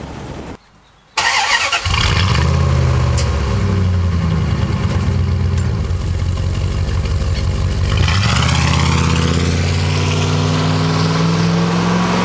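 Dodge Ram V8 exhaust through a new Flowtech Raptor muffler. The engine cuts in loudly about a second in and runs steadily, then from about eight seconds in its pitch climbs as the engine speeds up.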